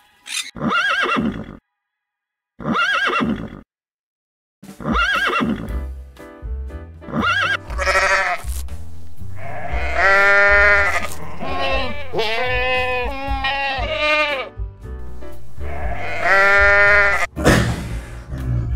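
Goat bleating: a string of long, wavering bleats, three with short silences between them, then more over background music that comes in about five seconds in.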